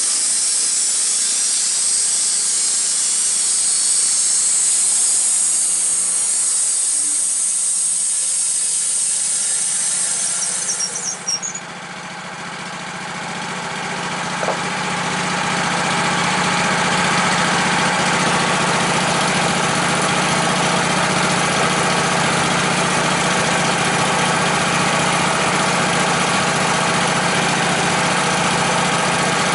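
A power saw cutting wood with a high, hissing squeal for about the first ten seconds. It cuts off with a few clicks, and an engine then builds up over a few seconds to a steady run with a low hum.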